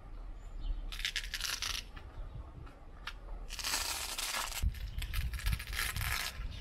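Clear plastic transfer tape being peeled off a wet vinyl decal on a boat hull, in two stretches of about a second each: one about a second in, the other near the middle.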